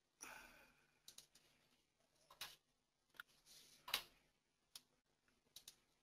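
Faint computer mouse clicks, about eight scattered single and double clicks, the loudest a little before four seconds in, with a soft breath close to the microphone just after the start.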